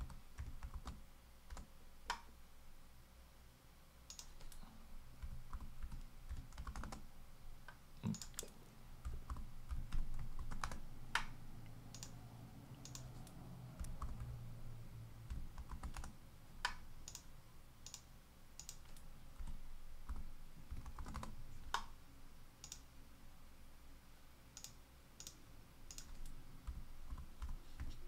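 Scattered, irregular keystrokes on a computer keyboard and mouse clicks, light and fairly quiet, as dimension values are typed in and lines are adjusted.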